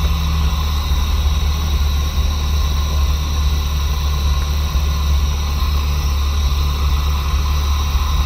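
Jeep engine idling, a steady low drone heard close through the hood, as the Jeep creeps slowly along a dirt trail.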